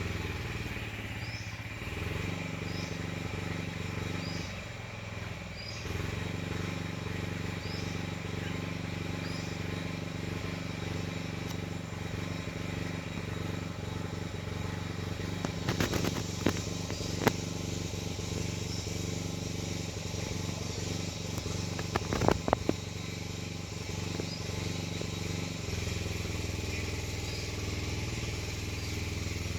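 A steady low engine-like hum, with a short high chirp repeating about every second and a half and a few sharp knocks around the middle.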